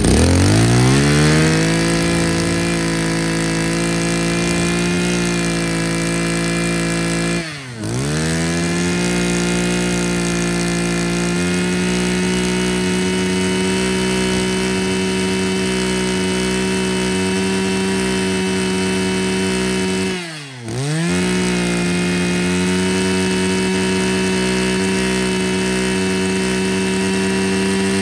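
Mitsubishi TL26 26cc two-stroke brush cutter engine revving up and held at high speed, the throttle let off briefly and opened again twice, about a quarter and about three-quarters of the way in.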